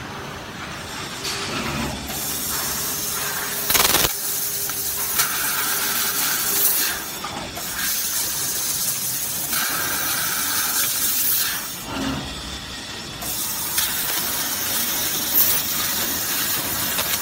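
Laser profile cutting machine cutting through a metal beam section: a loud, dense hiss of the cut and its assist gas, with a sharp burst about four seconds in and brief dips as the head moves between cuts.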